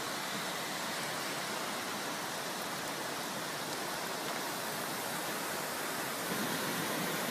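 Steady rushing of water, an even hiss without breaks, from fast-moving floodwater and rain.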